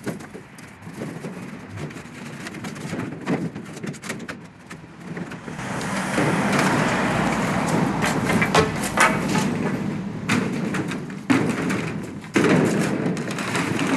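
Hands-on building work: scattered knocks and thumps, then a few seconds of rough scraping or rustling noise in the middle, with more sharp knocks after it.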